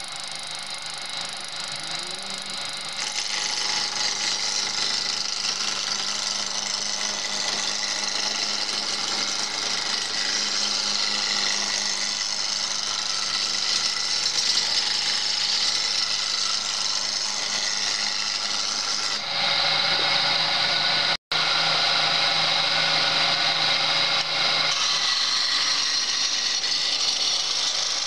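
Homemade belt-driven wood lathe running with a steady motor hum while a hand-held turning tool cuts a spinning square wooden blank down to round, giving a continuous scraping hiss of wood being shaved. The sound cuts out for an instant about 21 seconds in.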